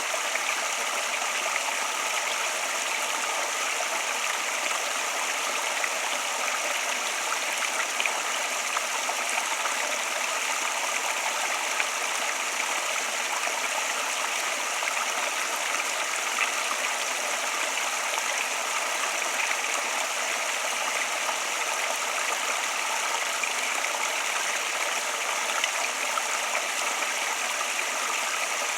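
Flowing water rushing steadily, an even hiss with no pauses or change.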